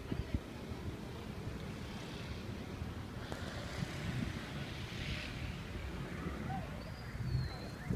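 Outdoor city-square ambience: a steady low rumble of distant traffic with wind on the microphone. A single sharp knock near the end is the loudest sound.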